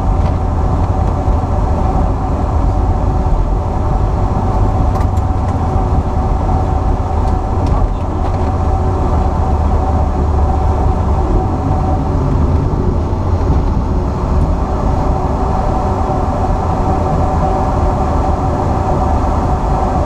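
Cockpit noise of an Embraer 175 jet airliner rolling out on the runway after landing: a steady low rumble from the wheels and engines, with a steady hum over it.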